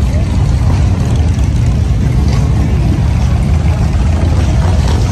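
Motorcycle engine idling with a steady, loud low rumble.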